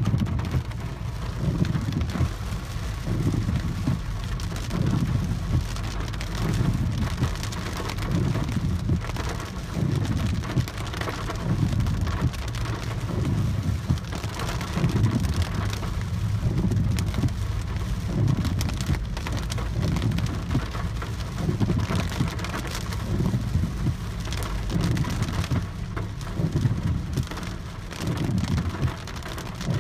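Heavy rain hitting the roof and windshield of a Peugeot 408, heard from inside the cabin while driving. A strong, uneven low rumble runs underneath.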